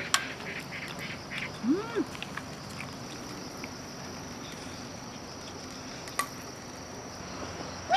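A cat gives one short, low meow that rises and falls, about two seconds in, over a faint steady hiss, with a couple of light clicks.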